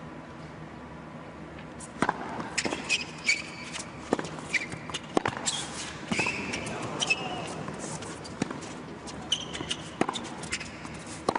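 Tennis rally: racket strikes and ball bounces come about once a second, starting about two seconds in, with short high-pitched shoe squeaks on the hard court between them, over a hushed crowd.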